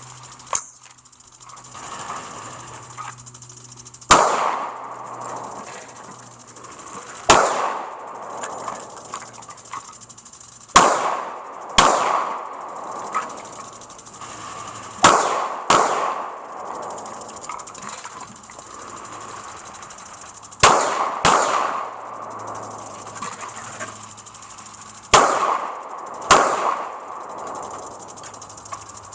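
AR-15 rifle firing about ten single shots at irregular intervals, several in quick pairs, each shot followed by a short echoing tail.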